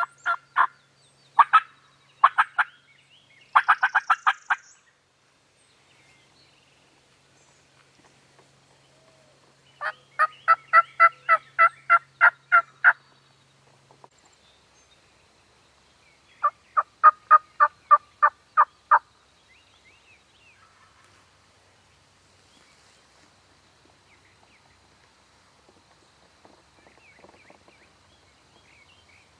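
Turkey yelping: several runs of evenly spaced, loud yelping notes at about four a second, one near the start, one about ten seconds in and another about sixteen seconds in, then faint outdoor background.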